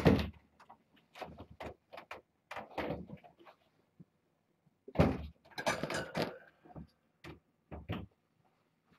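Irregular knocks, bumps and rustles, with a heavier cluster of thumps about five to six seconds in.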